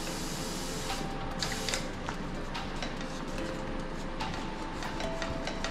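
Soft background music with held notes, over a few light clicks.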